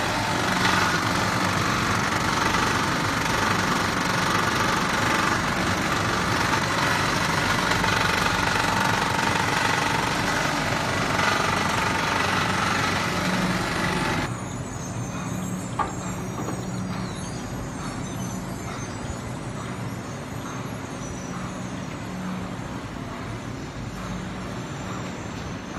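Soft-tile production line machinery running: a loud, steady noise over a constant low hum. About halfway through it drops abruptly to a quieter steady machine hum, with a single sharp click shortly after.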